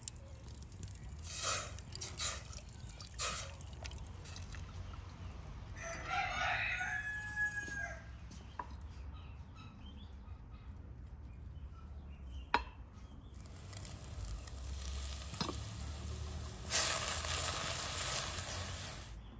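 A rooster crows once, about six seconds in, for about two seconds. Later come two sharp knocks, and near the end a loud scraping hiss as a silicone spatula stirs flour into melted butter in a steel pot.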